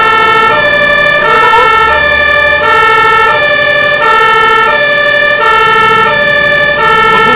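Fire engine's electronic siren sounding on an emergency run: a pattern of stepped tones repeating about every 1.3 seconds over a steady high tone, with the engine running underneath.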